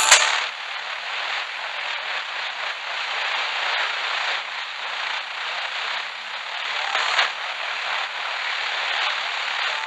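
FM radio hissing and crackling with static: the weak, distant station on 101.5 has faded out under the noise, with the music dropping away just as it starts.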